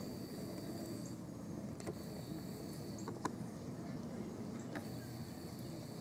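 Steady low rumble of distant road traffic. A thin high-pitched tone comes and goes three times, about a second each time, and a few brief sharp ticks sound.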